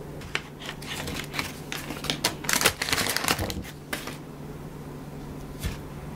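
A rapid, irregular clatter of small clicks and rustles lasting a few seconds, over a steady low hum; one more click near the end.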